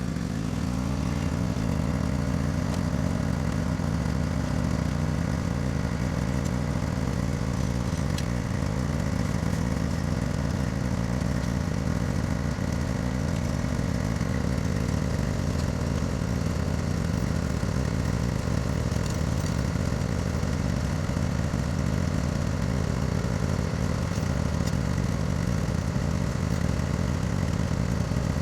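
Lawn mower engine running at a steady speed.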